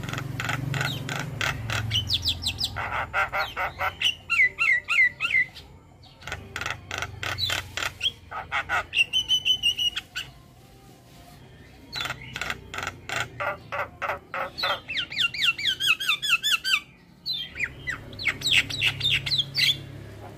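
Javan mynas calling: bursts of rapid, harsh chattering notes mixed with short whistled and gliding phrases, broken by brief pauses.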